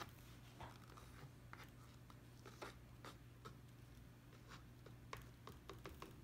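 Near silence: room tone with a steady low hum and faint scattered small clicks and ticks, a few more of them close together near the end.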